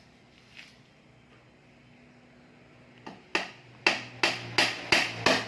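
Hammering: a quick series of about eight sharp knocks, roughly three a second, starting about three seconds in and getting louder, during work on a noodle-making machine.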